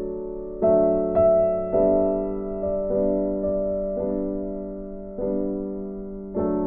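Soft background piano music: slow notes and chords, each struck and left to ring and fade, a new one coming roughly every second.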